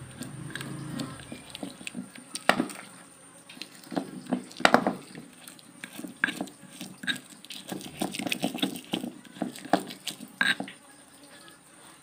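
Stone pestle grinding and pounding a thick, wet peanut-and-chili rujak paste in a stone mortar (cobek and ulekan): irregular knocks and scrapes of stone on stone, a few much louder strokes about two and a half, five and ten and a half seconds in. The paste is nearly ground fine.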